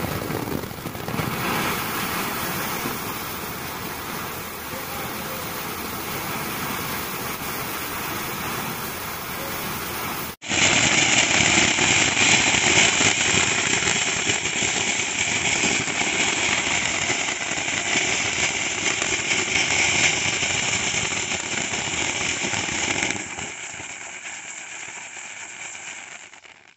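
Ground fountain fireworks spraying sparks with a steady rushing hiss. About ten seconds in, a cut switches to a second, louder fountain, which dies away over the last few seconds.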